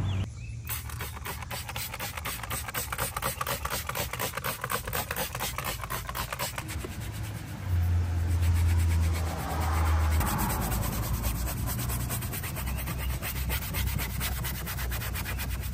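Rapid back-and-forth scrubbing against a surface, several strokes a second, over a low steady hum that grows louder from about eight to ten seconds in.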